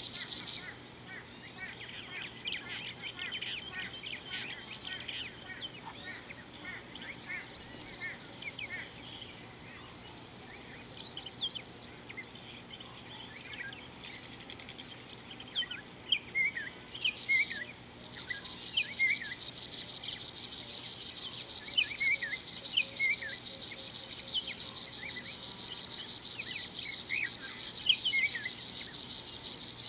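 Several birds chirping with many short, quick notes, a few louder calls standing out in the second half. A steady high insect trill runs under them, stopping about a second in and coming back about 18 seconds in.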